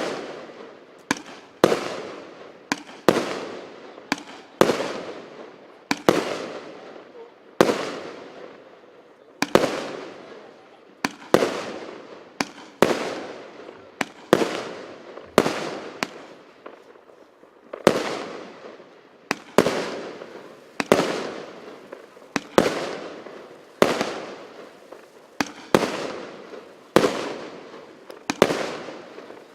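A 128-shot, 25 mm consumer fireworks battery (cake) firing in steady succession. It gives a sharp report a little more than once a second, each followed by a short fading tail.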